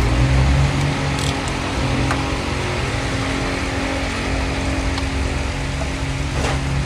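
A motor running steadily with a low hum, with a few light clicks over it.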